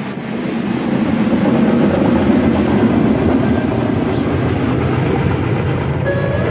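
A steady rumbling noise that grows louder over the first second, with a few faint held notes coming in near the end.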